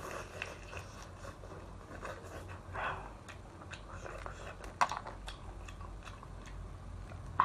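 Biting and chewing shell-on seafood, with scattered small cracks and crunches as shell pieces are pulled apart.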